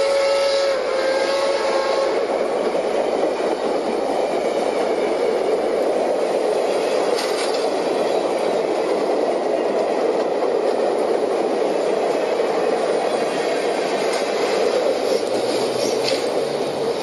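A steam locomotive's three-chime whistle sounds a chord that cuts off within the first two seconds. Then the train's passenger cars roll by with a steady rumble of wheels on rail.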